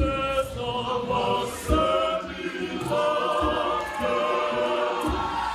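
Catholic church choir singing in parts, led by male voices, with a few short low thumps beneath the singing.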